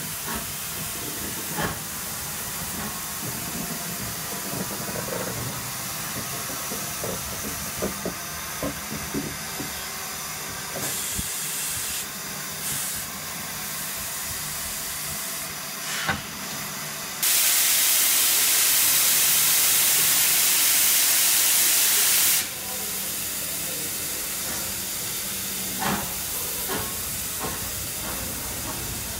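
Steam hissing steadily from a standing 1899 Taff Vale Railway O2 class tank locomotive, No. 85. Past the middle a much louder, steady rush of steam sets in and stops abruptly about five seconds later, and a few short knocks come now and then.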